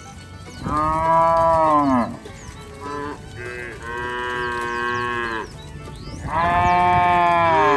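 Cattle mooing: three long calls, the first falling in pitch at its end, the second quieter, the third starting near the end and running on.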